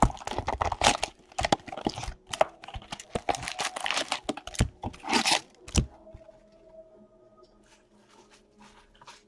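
Cardboard box of trading cards being torn open and its foil card packs crinkling and knocking as they are pulled out and set down. A dense run of tearing, rustling and knocks lasts about six seconds, then it goes much quieter.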